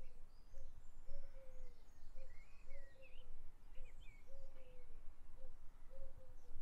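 A pigeon cooing over and over, low soft coos alternating short and longer, with small songbirds chirping and twittering higher up, mostly in the middle of the stretch.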